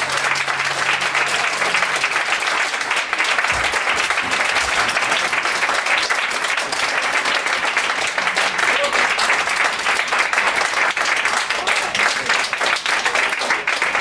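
Audience applauding steadily after a flamenco dance, a continuous patter of many hands clapping.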